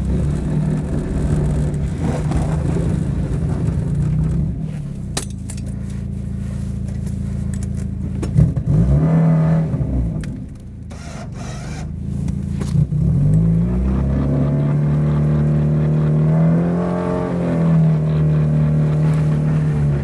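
Mazda Miata's four-cylinder engine running and revving: the pitch climbs and drops a little after eight seconds, then rises again from about thirteen seconds and is held high for several seconds. It is working the car through deep snow on summer tires, where traction is the limiting factor.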